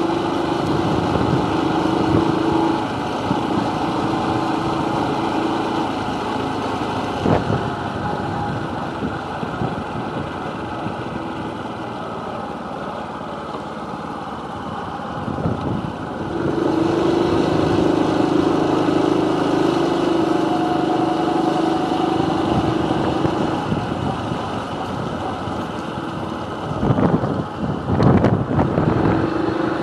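Motorcycle engine running at low riding speed, with wind and road noise. Its steady note fades for a stretch in the middle and comes back, and a few knocks sound near the end.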